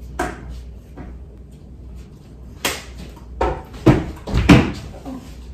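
A run of sudden knocks and thumps, with a sharp one a little past halfway and the two loudest about four seconds in, and a few quieter clicks between.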